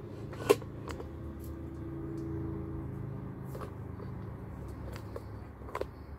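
Handling noise from a phone camera being adjusted: one sharp click about half a second in and a few lighter taps, over a steady low hum.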